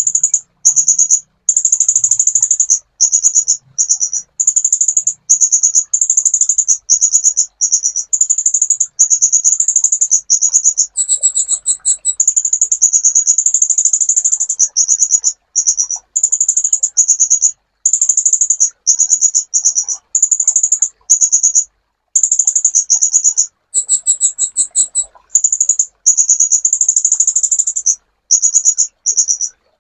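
Sunbird (kolibri) song: a very high, fast trill delivered in long runs broken by short gaps, twice switching briefly to a slightly higher, harsher phrase.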